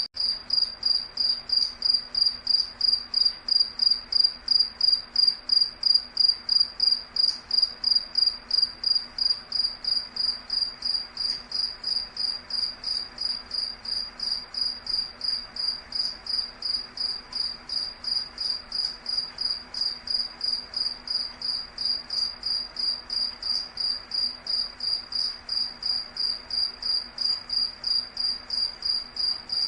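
An insect chirping in a steady, even rhythm of about three high-pitched chirps a second.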